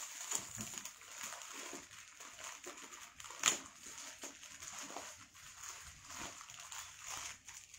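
Faint rustling and handling of plastic-wrapped garments, with scattered small clicks and one sharper click about three and a half seconds in.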